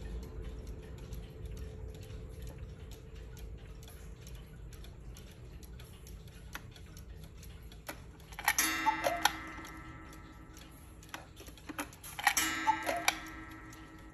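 August Schwer Black Forest cuckoo clock ticking steadily. About eight seconds in, and again about four seconds later, its striking mechanism goes off: a metallic strike that rings on, with a falling two-note call.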